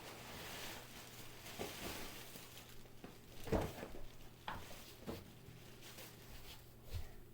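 Faint handling noises: a few soft, scattered knocks and rustles of small objects being moved, the clearest about halfway through, over a low steady hum.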